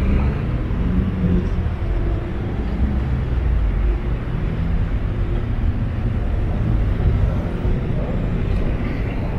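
Steady low rumble of motor traffic, with a vehicle engine running close by.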